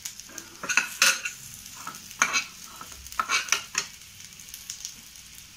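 Perforated stainless-steel spatula stirring and scraping chicken pieces, onion and capsicum in a non-stick pan, over a steady sizzle of frying. A handful of short scraping strokes come in small clusters.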